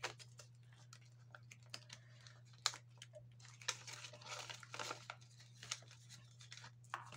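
Clear plastic planner sleeves and paper banknotes rustling and crinkling as they are handled, with scattered light clicks.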